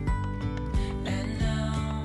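Background pop music with a steady beat and guitar, between sung lines.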